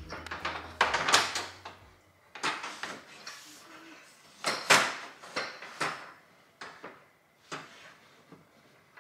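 Wire-mesh puppy divider panel clattering and knocking against the frame of a Diggs Revol dog crate as it is worked into place, in a string of separate rattles about a second or so apart.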